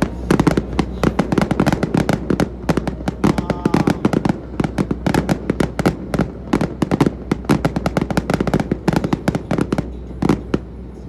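Aerial fireworks display going off in a rapid, dense run of bangs and crackling pops, thinning out near the end.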